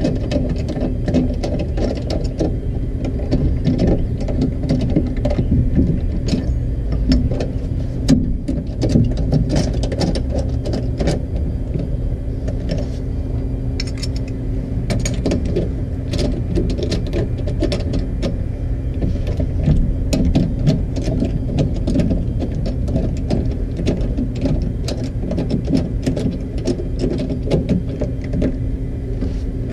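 Lug nuts being spun onto wheel studs by hand, with many small metallic clicks and ticks over a steady low hum.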